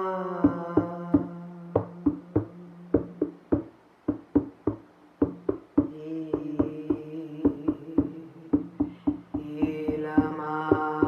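Drum beaten in a steady rhythm, roughly three strokes a second, under a held droning tone. The tone fades out about three seconds in and returns on a new note about six seconds in.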